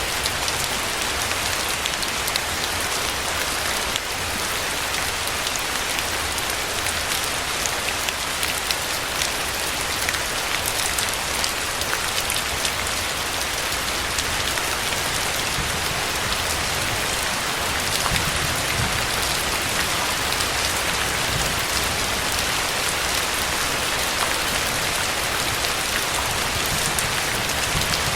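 Steady heavy rain falling on a surface, a dense hiss full of fine drop patter, with a low rumble underneath.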